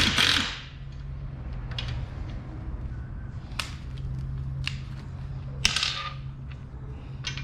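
Scattered sharp clicks and knocks of hard parts being handled, with two louder rustling knocks, one at the start and one just before six seconds in, over a steady low hum.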